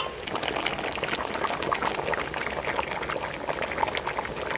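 Beef nalli salan, marrow bones and meat in a thin stock gravy, bubbling steadily in a metal pot: a dense, even crackle of small popping bubbles.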